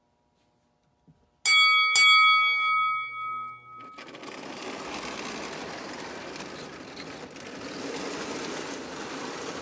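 Two bell dings about half a second apart, ringing out and fading over a couple of seconds. Then a Marx toy train starts running on tinplate track, with a steady rumbling clatter of the motor and wheels.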